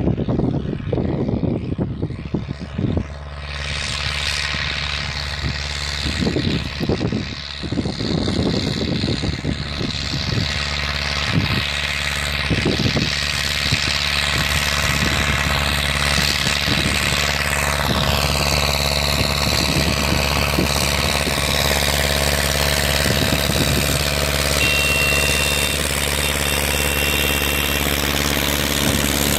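Belarus MTZ-82.1 tractor's four-cylinder diesel engine running steadily, with uneven bursts of noise over it during the first ten seconds or so.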